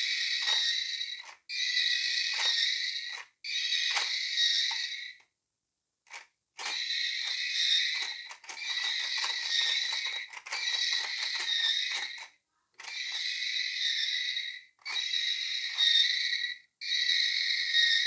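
Gun Finger toy's electronic sound effect from its small speaker: a pulsing high-pitched buzz played in bursts of about one and a half seconds, about ten times over with short gaps between.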